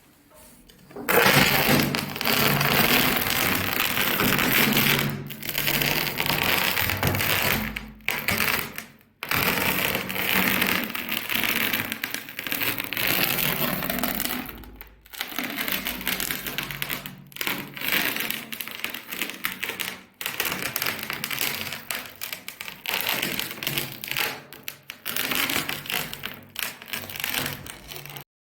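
Continuous crunching and crackling of material being crushed, in runs of several seconds broken by brief pauses.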